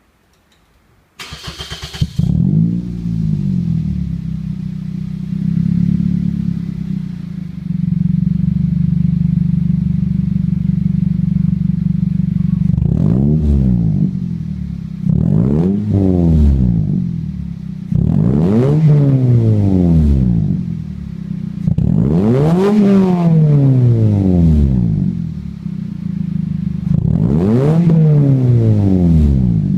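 Exhaust of a Toyota Wish's 1.8-litre 1ZZ-FE inline-four DOHC engine through a modified Kakimoto aftermarket muffler with its inner silencer removed. The engine starts about a second in and idles, then is revved in short blips several times, each rising and falling back to idle.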